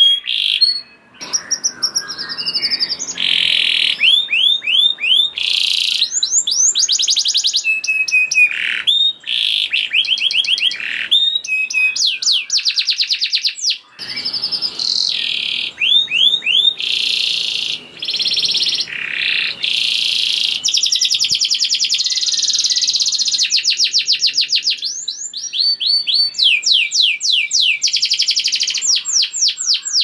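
Domestic canary singing a long, continuous song of fast trills, buzzy rolls and whistled notes, with only a few short breaks.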